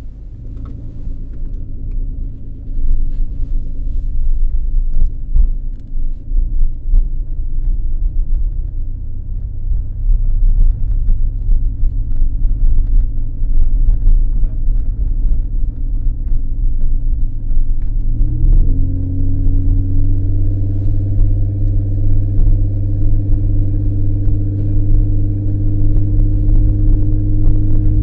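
2003 Ford Escape engine running through an exhaust that is loud and in need of repair. About two-thirds of the way in the engine note rises quickly and then holds steady at the higher pitch.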